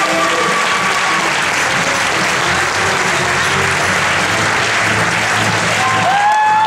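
Audience applauding continuously, with the cast's finale music underneath. About six seconds in, a long held note rises in and holds.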